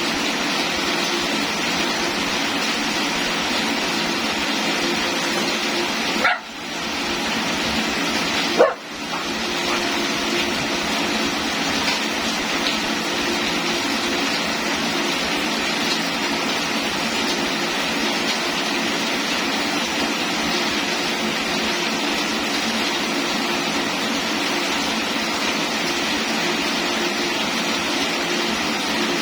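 Steady rain falling, an even hiss. It is broken by two brief sharp sounds, about six seconds and about nine seconds in.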